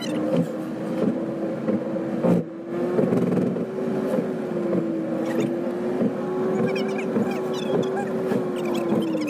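Car running along a road, heard from inside the cabin: a steady engine and road hum whose pitch wanders slightly and falls near the end, with a few light knocks.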